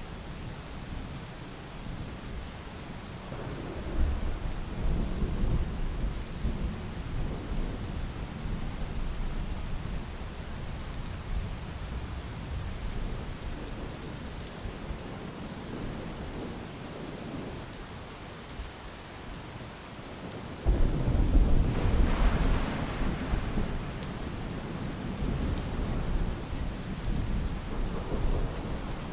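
Steady rain falling, with thunder rolling in low rumbles. A louder crack of thunder starts suddenly about two-thirds of the way through and rumbles on for several seconds.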